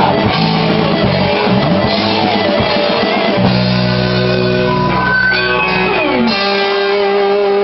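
Rock band playing live, guitars to the fore, with held notes and sliding pitches about five to six seconds in.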